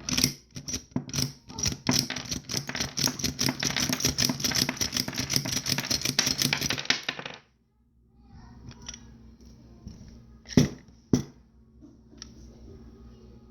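Freshly reassembled Glock 22 pistol being handled: a long run of rapid metallic clicking and rattling, then after a sudden break two sharp metal clicks about half a second apart, as the slide and action are worked to check function.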